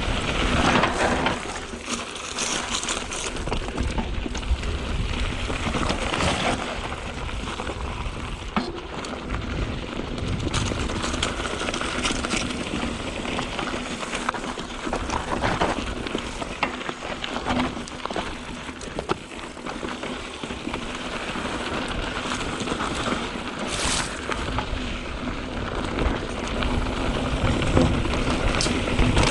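Mountain bike rolling down a loose dirt trail: knobby tyres crunching over dirt and rocks, with scattered clicks and rattles from the bike and a steady rush of noise.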